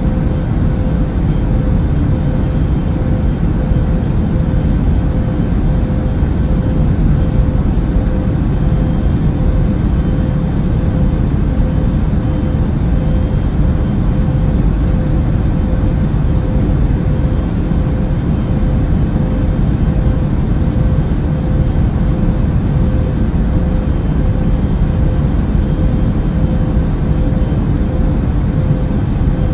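Airbus A380 cabin noise in flight: a steady, unbroken low rumble of engines and airflow, with a faint constant hum.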